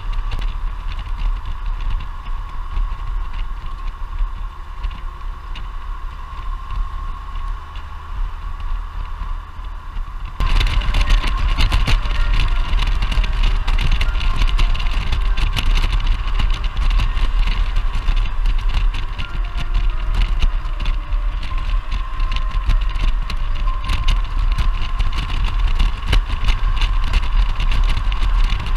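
Motorcycle riding noise picked up by a helmet-top GoPro in its protective case: wind rushing over the camera with the bike's engine underneath. About ten seconds in it gets louder and rougher.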